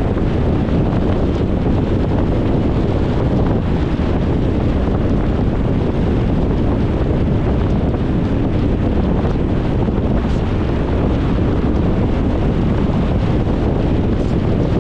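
Steady road noise of a car driving, tyre and wind noise held at an even level with most of the energy low down and no separate events.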